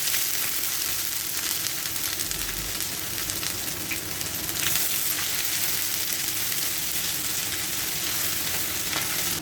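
Ginger-garlic paste and dried red chillies frying in hot oil, a steady sizzling hiss as they are stirred in the pan, with a few faint ticks from the spoon.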